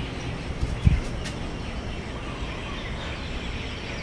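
Steady outdoor evening background noise with faint bird chirps, and one dull low thump about a second in.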